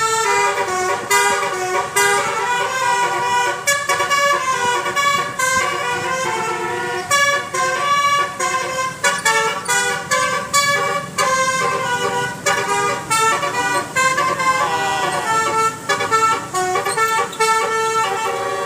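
Basuri (telolet) multi-tone bus horn playing a fast melody, its horn notes changing pitch in quick steps, with a short downward slide partway through.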